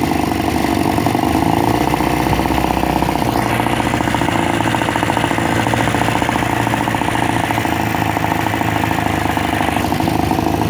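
Veterok-12 two-stroke outboard motor running evenly and steadily, with no sneezing misfires. Its lean mixture has been enriched.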